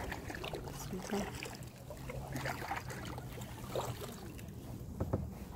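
Kayak paddle strokes: water splashing and dripping off the blades as they dip into the lake at irregular intervals.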